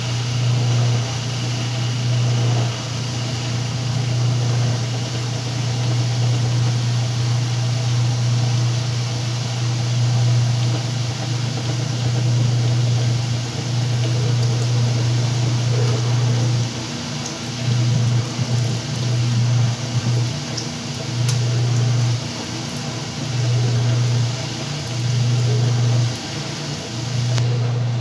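Whirlpool top-loading washing machine in its spin cycle, the drum spinning a heavy load of bed blankets with a steady motor hum. From about halfway through, the hum starts cutting in and out every second or two.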